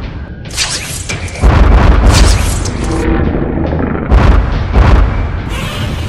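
Cartoon battle sound effects: a series of loud booms and blasts, a short one about half a second in, a long heavy one from about a second and a half to three seconds, and two sharper ones around four and five seconds.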